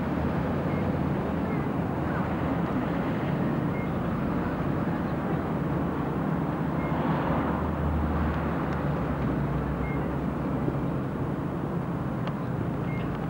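Steady low drone of a vehicle engine under a constant rushing noise.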